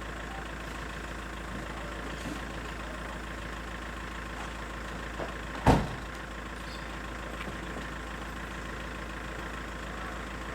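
Fire engine idling steadily, with one sharp, loud thump a little past halfway.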